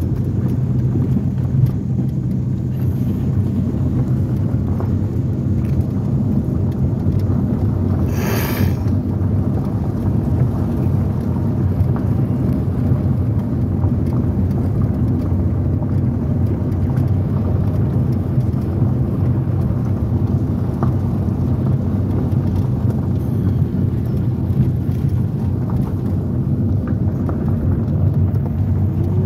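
Car driving on a gravel road, heard from inside the cabin: a steady low rumble of tyres on gravel and the engine.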